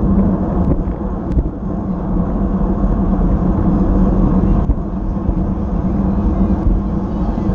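Wind rushing over an action-camera microphone on a fixed-gear bicycle racing at about 25 mph, a steady low rumble with road noise from the tyres and a few faint ticks.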